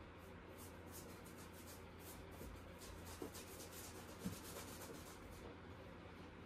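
Faint, quick scratchy strokes of paint being worked onto a canvas, a rapid run of short rubs that stops about five and a half seconds in.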